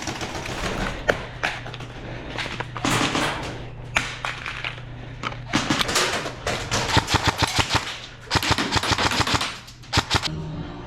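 Airsoft electric guns (AEGs) firing in rapid bursts of sharp clicking shots, with scattered single shots; the densest run of bursts comes about six to nine and a half seconds in, over a steady low hum.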